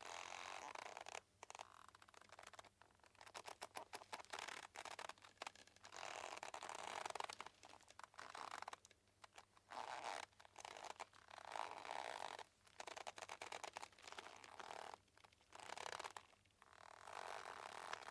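Boat rope creaking under strain, in repeated drawn-out creaks made of rapid ticks, each lasting a second or two with short pauses between.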